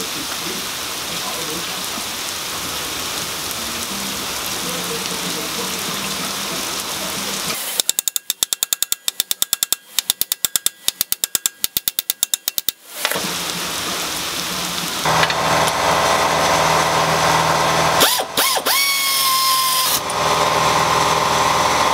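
Hand ratchet wrench clicking rapidly, about seven clicks a second for some five seconds, while the brake caliper is worked on. A steady hiss runs before the clicking, and a louder steady hum with a sliding whine follows it.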